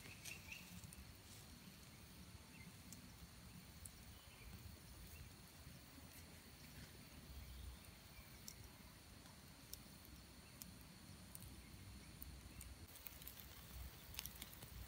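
Near silence: faint outdoor ambience with a few scattered soft ticks.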